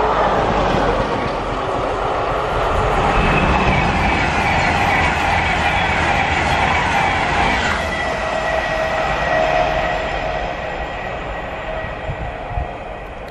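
Passenger train passing close by: coaches rumbling and clattering over the rails, with high steady whines joining about three seconds in as a Class 390 Pendolino electric passes on the next track; the sound fades over the last few seconds.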